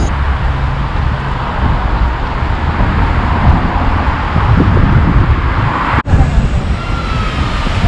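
Steady road traffic on a busy city street, with wind rumbling on the microphone. The sound breaks off for an instant about six seconds in and carries on.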